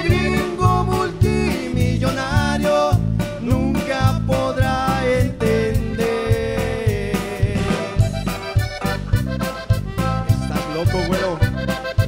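Live band music led by a diatonic button accordion playing the melody, over electric bass and drums keeping a steady dance beat, with guitar.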